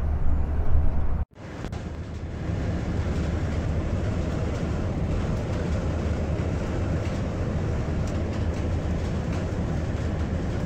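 Steady low drone of engine and road noise inside the cabin of a 1970 Buick Estate Wagon with its 455 V8, cruising on the highway while towing. The sound cuts out briefly about a second in, then resumes slightly quieter and steady.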